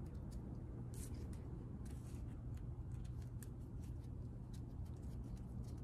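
Faint light clicks and ticks of a Badger Sotar 2020 airbrush being handled and its trigger worked in gloved hands, at irregular intervals over a steady low hum.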